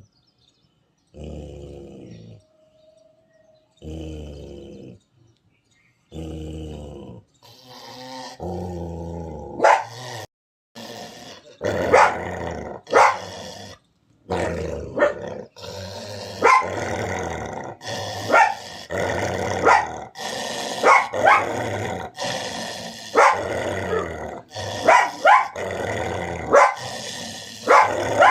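A dog growling in several separate spells, then from about nine seconds in barking and growling in a dense, loud run.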